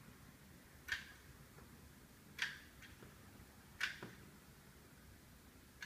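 A few faint, sharp clicks, four in all, spaced about one and a half to two seconds apart.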